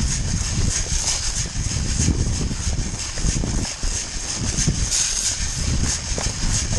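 Running footsteps with wind rumbling over the microphone.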